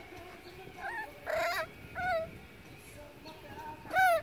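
Puppy yipping and whining during rough play, about four short high calls, the loudest near the end.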